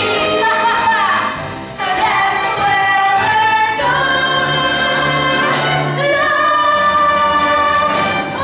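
Several stage performers singing a show tune together over instrumental accompaniment, holding long notes, with a low bass note sustained for a couple of seconds midway.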